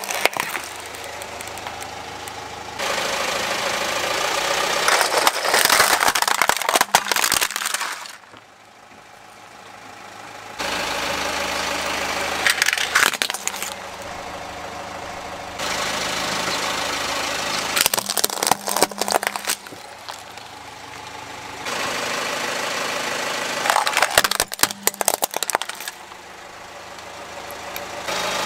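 A car's engine idling as its tyre rolls slowly over plastic toys, crushing them with bursts of cracking and crunching about four times, in a run of short clips that cut from one to the next.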